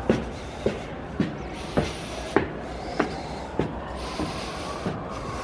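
Footsteps climbing stone stairs at a steady walking pace, a sharp step a little under twice a second, over a steady background hum.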